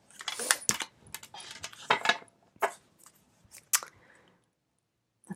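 Rider-Waite tarot cards being handled and shuffled: a run of sharp card snaps and short papery rustles, dying away about four seconds in.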